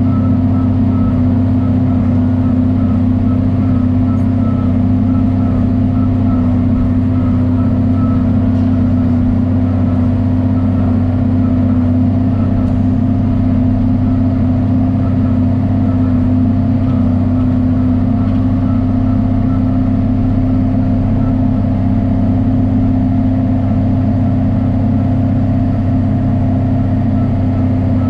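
John Deere 4430 tractor's six-cylinder diesel engine running at a steady speed.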